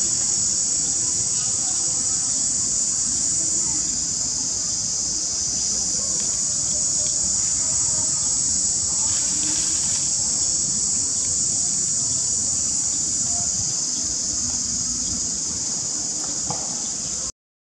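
A steady, high-pitched drone of insects chirring in the background. The sound cuts out for a moment near the end.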